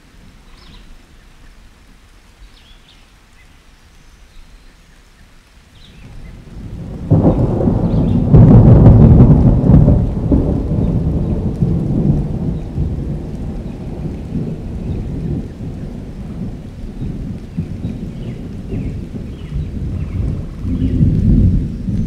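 Thunder rumbling: a low roll that swells up about six seconds in, is loudest a couple of seconds later, and keeps rolling unevenly. Before it, a few faint bird chirps.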